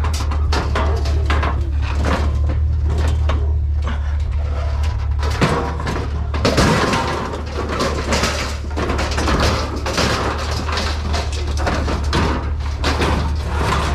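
Steady low drone of a truck running, heard from inside the cab, with frequent clatters and knocks of loose things rattling.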